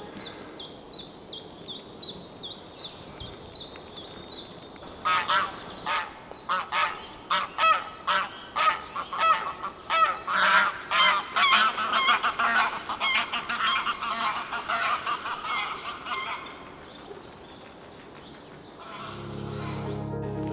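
Wild birds calling in woodland: a high call repeated about twice a second for the first few seconds, then a run of louder, lower calls from about five seconds in that die away after about fifteen seconds.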